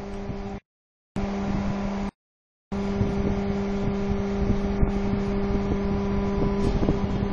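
Hydraulic press power pack, an electric motor driving the oil pump, running with a steady hum. The sound cuts out twice briefly, and the tone shifts a little near the end.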